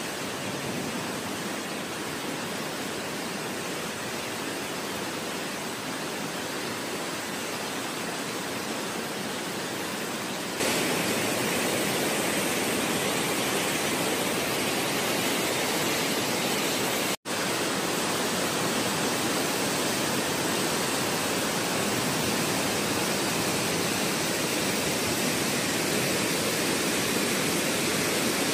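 Rushing muddy floodwater of a swollen river: a steady, dense rush of water that gets louder about ten seconds in, broken by a split-second gap a little past halfway.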